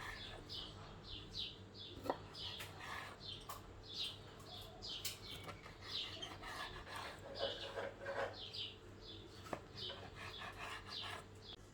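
Small birds chirping over and over in short falling chirps, with a few sharp taps of a knife on a cutting board as a rolled dough log is sliced.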